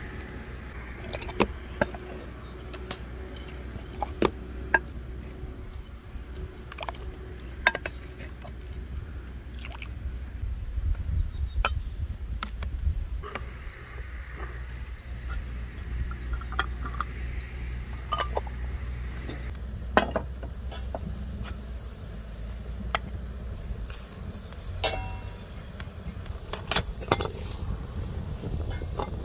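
Scattered sharp clinks of glass jars and dishes being handled, over a steady low wind rumble on the microphone.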